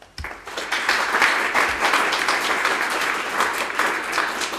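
Audience applauding, many people clapping at once; it starts a moment in and eases off slightly near the end.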